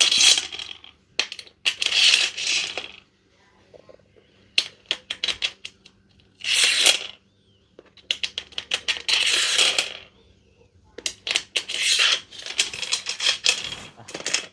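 Small metal bolts clinking and rattling, with repeated bursts of scraping as they are slid along the awning's mounting track to fit the bracket.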